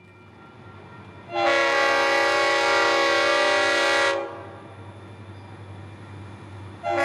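Diesel freight locomotive's multi-note air horn: one long blast of about three seconds, then a second blast starting near the end, over a steady low rumble.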